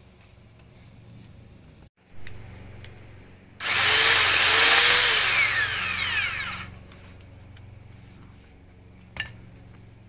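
Black and Decker 550W Alligator powered lopper, a corded electric chain lopper, running loudly for about three seconds as it cuts into a tree branch. It starts abruptly about three and a half seconds in. A single sharp click comes near the end.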